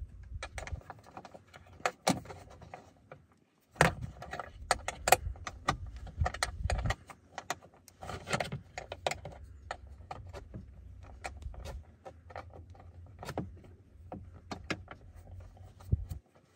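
Small metal wrench clicking and scraping against a 7 mm bolt as it is worked loose by hand, a string of irregular sharp metal clicks.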